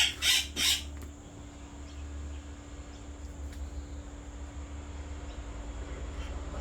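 Three loud, harsh parrot squawks in quick succession in the first second, then a steady low hum.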